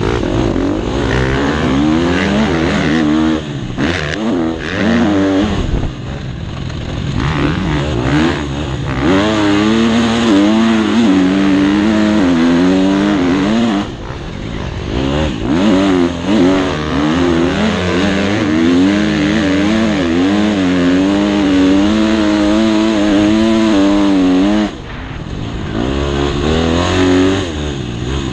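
Motocross bike engine revving hard, its pitch rising and falling with the throttle through the corners and straights. It drops off briefly about halfway through and again near the end before picking up.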